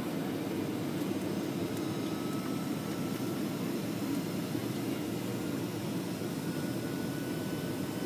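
Steady cabin drone of a Boeing 737's jet engines and rushing airflow in the climb after takeoff, heard inside the cabin by the wing, with a faint high whine above it.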